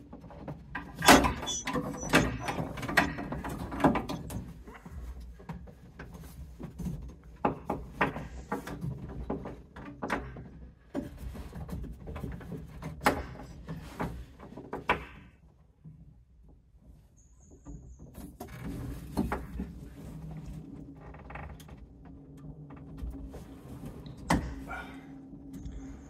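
Irregular clicks, knocks and scraping of hands and a hand pump's hose connector working at the Schrader valve of a combi boiler's expansion vessel while the connector is pushed on, with a near-quiet pause about two-thirds of the way through.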